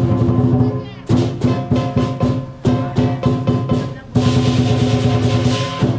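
Lion dance percussion: a large drum beaten with clashing cymbals and a ringing gong, in quick strokes, then a dense loud roll that stops suddenly at the end.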